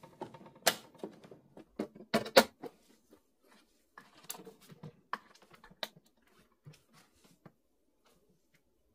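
Hard plastic clicks and knocks as the Philips coffee machine's brew group is pushed into its housing, the loudest pair about two and a half seconds in. These are followed by a cluster of lighter handling noises and a few faint taps.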